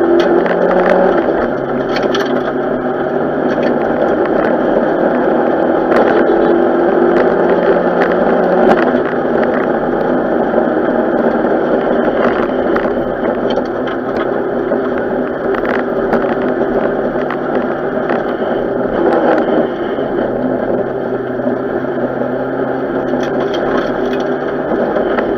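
Renault 5 GT Turbo rally car's turbocharged four-cylinder engine heard from inside the cabin at racing speed, its note stepping in pitch several times as the driver changes gear. Cabin rattles and short knocks sound over the engine throughout.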